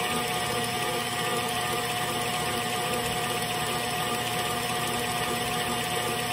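KitchenAid stand mixer running steadily, its wire whisk whipping eggs and sugar in the steel bowl: an even motor hum and whisk whirr. The batter is nearly whipped to the pale lemon-cream stage.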